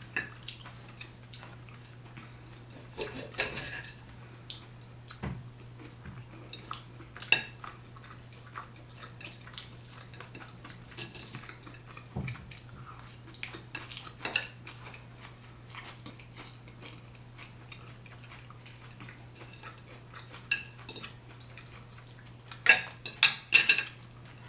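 A fork clinking and scraping against a dish in scattered short knocks, with a quick run of clinks near the end, over a steady low hum.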